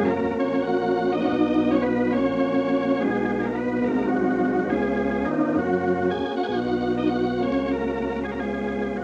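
Organ music playing sustained, slowly changing chords as a musical bridge between the commercial and the story in an old radio broadcast, fading down near the end.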